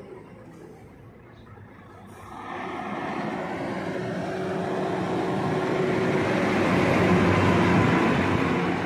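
A passing vehicle: a rushing noise that rises from about two seconds in, grows steadily louder toward the end, then starts to fade.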